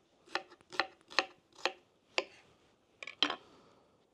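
Knife chopping on a cutting board: about seven short, sharp strokes at an uneven pace, with a short pause midway.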